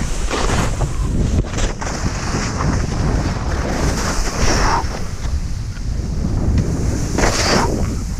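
Wind buffeting the microphone, a continuous rushing hiss with heavy low rumble, with louder swooshes about four and a half and seven seconds in.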